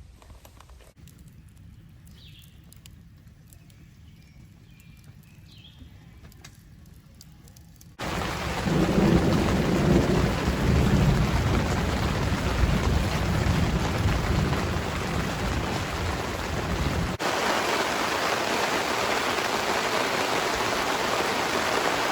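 Quiet background with a few faint high chirps, then heavy rain that starts suddenly about a third of the way in, with a deep rumble of thunder under it. After an abrupt cut, heavy rain alone continues, steady and loud.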